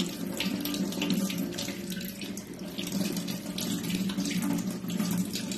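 Kitchen tap running into a stainless-steel sink, the stream splashing over hands that squeeze and rinse a lump of wheat-flour dough, washing the flour out of it.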